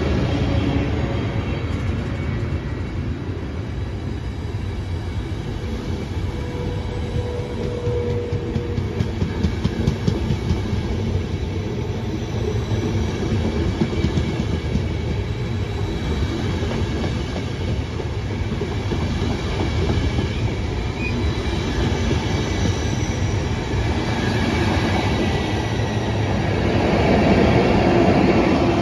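A train of Intercity passenger coaches rolling past on the track with a steady rumble, its wheels clicking over the rail joints.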